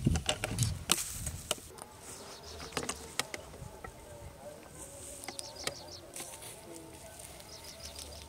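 Sharp crackles and rustles in the first three seconds, then a faint wavering buzz with a few short high chirps, like insects in a dry field.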